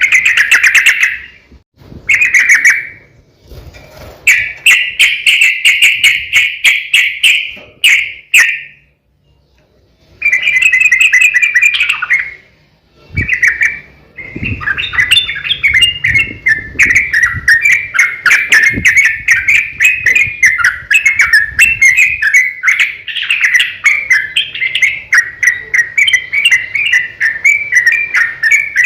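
Yellow-vented bulbul (trucukan) singing loud chattering phrases. Early on these come in bursts a second or two long with short pauses. From about halfway the bird runs into one long, rapid, unbroken chatter, the 'ropel' rolling song used to provoke other bulbuls to answer.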